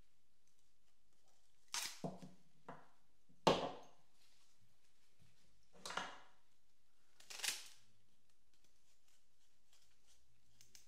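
Pruning secateurs cutting through thick sunflower stems: about six sharp snips spaced a second or two apart, the loudest about a third of the way through.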